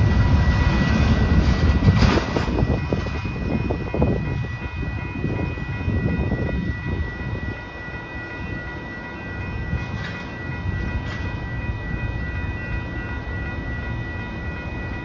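The tail of a double-stack intermodal freight train clatters past with a heavy low rumble that fades away within the first several seconds. The grade crossing's warning bell keeps ringing steadily and stops near the end as the gates lift.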